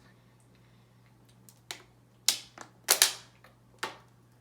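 Close-miked eating sounds: a handful of sharp clicks and smacks from chewing, starting about a second and a half in, over a steady low electrical hum.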